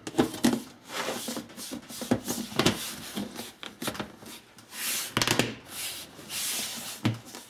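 Plastic lid being pressed down and snapped onto a plastic food-storage container: irregular rubbing and scraping of plastic on plastic with scattered clicks, the sharpest a little over halfway through.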